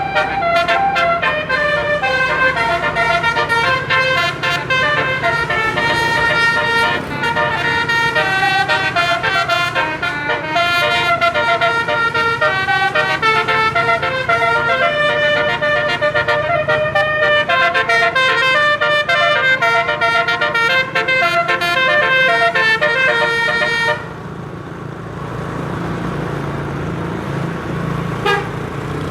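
A bus's 12-note telolet horn, a set of tuned trumpet horns, playing a fast melody of many changing notes. It stops suddenly about 24 seconds in, leaving the low rumble of the engine and road, with one short toot near the end.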